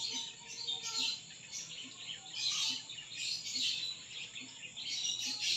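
Birds chirping in the background: irregular clusters of short, high-pitched chirps.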